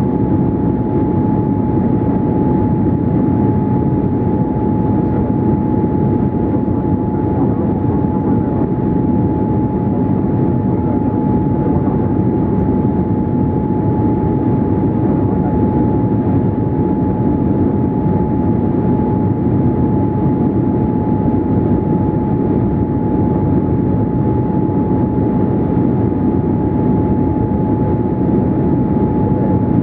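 Cabin noise of a Boeing 787-8 in flight: the steady rush of airflow and its Rolls-Royce Trent 1000 engines, with a constant high tone above it.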